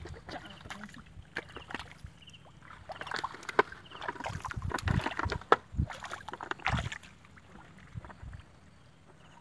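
Muddy water splashing and sloshing as hands dig and grope through shallow mud, with irregular wet squelches and splashes, busiest in the middle and quieter near the end.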